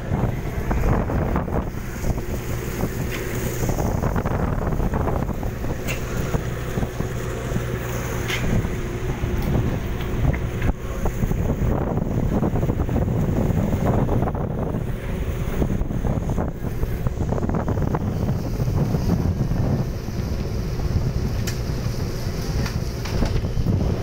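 Wind buffeting the microphone aboard a fishing vessel under way, over the low hum of the boat and the rush of sea water along the hull, with a few faint knocks.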